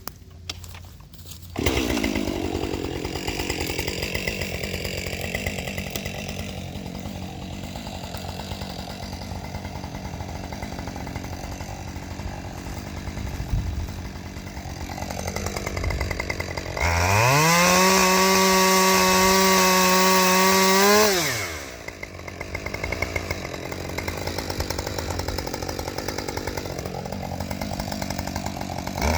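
Husqvarna 545 Mark II two-stroke chainsaw cutting dead ash. It comes in loud about a second and a half in and runs at a low, wavering pitch under load. Around the middle it revs up to a high, steady pitch for about four seconds, then drops back low as it bites into the wood again.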